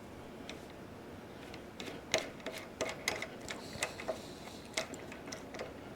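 Irregular light metallic clicks and clinks, a dozen or so, starting about two seconds in: small steel tools and parts being handled and set down.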